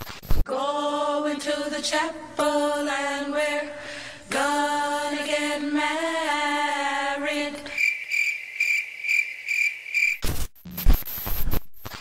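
A singing voice holds long, steady 'aah' notes in two chant-like phrases. It gives way to a couple of seconds of crickets chirping in a high, pulsing trill. Loud bursts of noise cut in near the end.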